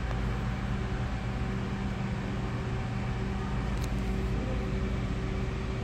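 Steady indoor ventilation hum from building air handling, with several fixed low tones under an even rushing noise.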